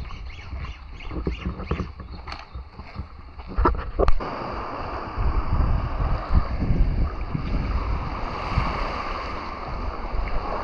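Wind rumbling on the microphone over the rush of surf, with a regular light tapping in the first few seconds and two sharp clicks about four seconds in. After the clicks the rush grows louder and stays steady.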